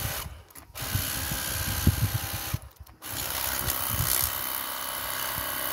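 Worx Hydroshot WG620E cordless pressure washer's battery-powered pump running and spraying water, with a steady hiss and motor whine. It stops twice for about half a second, once near the start and once about three seconds in.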